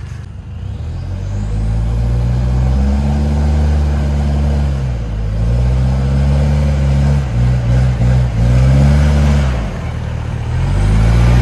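Toyota Land Cruiser Prado's engine revving up and down repeatedly as the 4x4 pulls up a muddy trail, its pitch rising and falling several times, briefly stuttering about eight seconds in and climbing again near the end.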